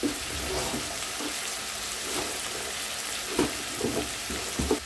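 Chopped brinjal, raw banana and potato with onion sizzling as they sauté in an aluminium pot: a steady frying hiss, with a few light knocks near the end.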